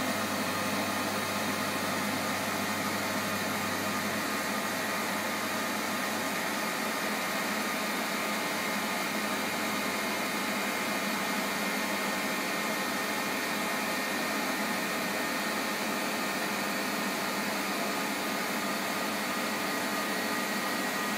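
MAHO MH 700 C CNC milling machine running with its table traversing: a steady whirring noise carrying a couple of steady high whine tones. A low hum drops away about four seconds in.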